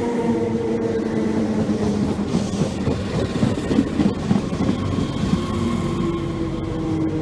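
SNCF Z 6400 electric multiple unit pulling into the platform and slowing. Its motor whine falls in pitch, with a rougher stretch of wheel clatter about three to four seconds in, then a steadier whine near the end.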